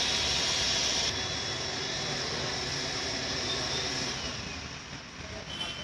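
Disinfectant spray booth misting: a steady hiss from its pump and nozzles that cuts off sharply about a second in, leaving a softer hiss that fades away over the last two seconds.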